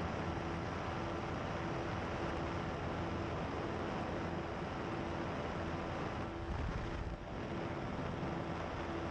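Pterodactyl Ascender II ultralight's engine and pusher propeller droning steadily in flight, mixed with heavy wind rush over the microphone. There is a short dip in level about seven seconds in.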